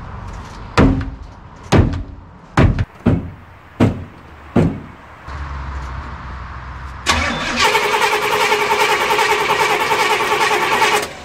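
Six hard hammer blows on the steel fuel tank of a 1994 Chevy 3500 HD, struck to jar a stuck in-tank fuel pump into running. About seven seconds in the starter cranks the big-block V8 steadily for about four seconds without it catching, then stops abruptly.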